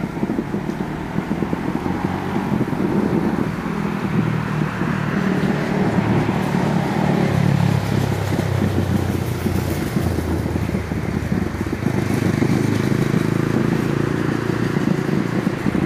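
Distant fireworks barrage: a continuous low rumble of many overlapping bursts, with no single bang standing out.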